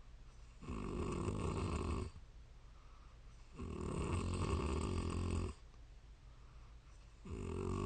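A woman snoring in her sleep: three loud snores of about one and a half to two seconds each, coming roughly every three seconds, with quiet breathing between. The last one starts near the end.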